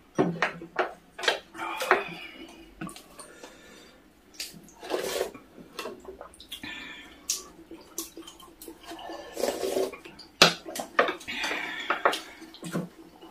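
Spoons and chopsticks clicking and clinking against bowls and dishes, again and again, with wet eating sounds between the clinks.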